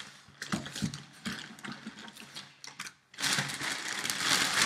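A package being opened by hand: scattered clicks and knocks of handling, then from about three seconds in a loud, dense rasping of packaging being pulled open.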